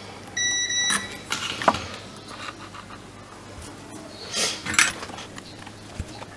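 A digital multimeter's beeper sounds one steady high beep of about half a second as its probes are held on a resistor. Light clicks and brief rustling of handling the circuit board and tools follow.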